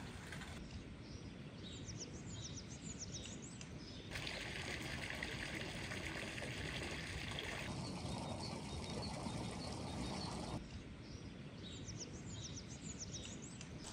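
Outdoor ambience: small birds chirping in two stretches, with a steady hiss of trickling water between them.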